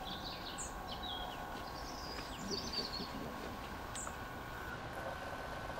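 Small birds chirping in several short twittering phrases, over a faint steady rumble of a steam train running away into the distance.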